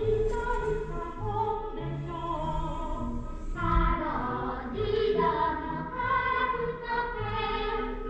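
Classical-style music with long held melody notes over a bass that repeats in short notes.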